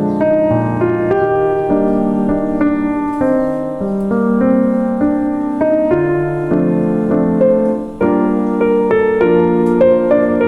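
Calm solo piano background music, gentle notes and chords played at an unhurried pace.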